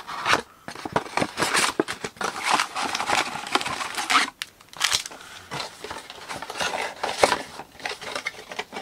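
A cardboard box of trading cards being opened and emptied by hand: irregular rustling, tearing and crinkling of the packaging, with scattered sharp clicks.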